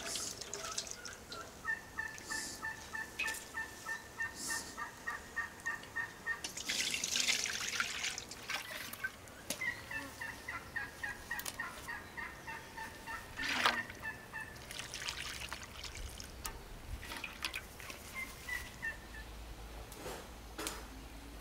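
Farmyard fowl calling in long runs of quick, evenly spaced clucks, about four a second, heard twice and once more briefly near the end. About seven seconds in there is a short rush of liquid as rosehip juice is squeezed from a cloth bag into a basin.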